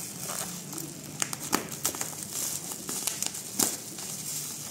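Bubble wrap crinkling and rustling as scissors cut the tape around a wrapped package, with a few sharp clicks.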